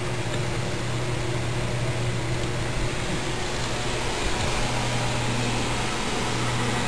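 Steady machine hum with a constant hiss, unchanging throughout.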